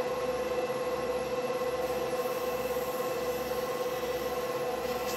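Wood lathe running with a steady hum while sandpaper rubs against the small spinning wooden handle, giving a constant hiss.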